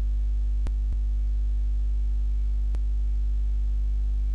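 Steady electrical mains hum, with faint computer mouse clicks: two close together about a second in and one more near three seconds in.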